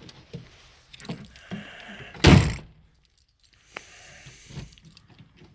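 Electric rear tailgate window of a 1987 Jeep Grand Wagoneer working, its motor running with a faint hum. A single heavy thunk about two seconds in is the loudest sound, and the hum comes back briefly after a short pause.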